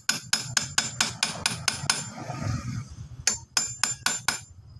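Rapid light metal-on-metal tapping, about six taps a second for a couple of seconds, a pause of about a second, then a few more: a punch tool being tapped against the lock washer on a Yamaha Sniper 150's clutch hub nut to bend its tab over and lock the nut.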